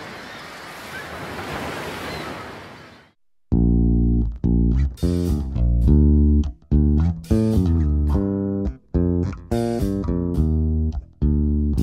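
Surface water and wind noise on the camera's microphone for about three seconds, fading out; then background music with bass and guitar starts and plays on in choppy phrases.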